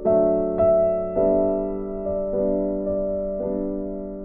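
Soft piano background music: sustained chords and notes struck one after another, a new one every half-second to second, each ringing and fading.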